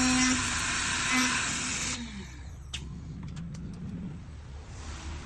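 Two-head CNC lock-hole drilling machine running with its spindles whirring, then winding down about two seconds in, followed by a few light mechanical clicks.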